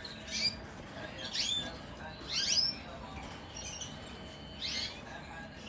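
Canaries calling: four short, high chirps, each a quick cluster of sweeping notes, spread irregularly over a few seconds.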